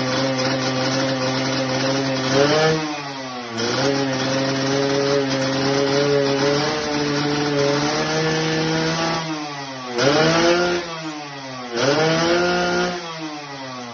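Yamaha RX-King's single-cylinder two-stroke engine running through a newly made under-belly expansion-chamber exhaust, idling steadily and revved up in a few throttle blips, with the revs falling back near the end.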